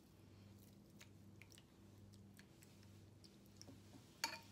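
Faint, near-silent wet handling sounds: raw beef strips squelching as they go into a marinade and are worked with a fork, with soft scattered clicks of the fork against the ceramic bowl and one sharper click about four seconds in. A low steady hum sits underneath.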